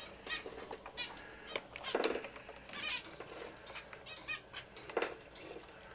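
Pet finches in an aviary giving short chirping calls at irregular intervals, with a few louder calls about two, three and five seconds in.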